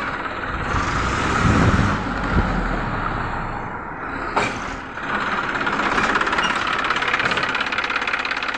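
Massey Ferguson tractor diesel engine running steadily, with rapid even firing pulses. There is a low rumble in the first few seconds and one sharp knock about four and a half seconds in.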